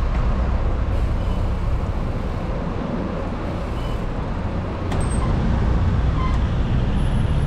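Steady low rumble of passing road traffic mixed with wind on the bicycle-mounted camera's microphone while riding, a little louder from about five seconds in, with a faint click near the same moment.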